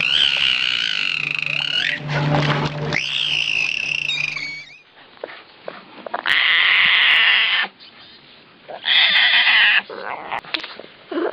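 Animal calls from separate clips: first a high, wavering call with pitch glides. After a cut come two loud, harsh calls, each lasting about a second, with short noises between them.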